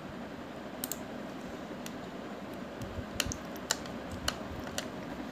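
Scattered sharp clicks of a computer keyboard and mouse, including mouse-wheel scrolling, over a steady background hiss.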